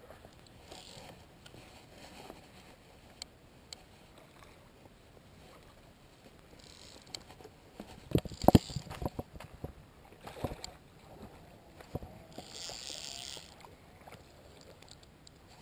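Handling noise from a fishing rod and spinning reel: a cluster of sharp knocks and clicks about eight seconds in, a few scattered clicks after, and a brief hiss near the end.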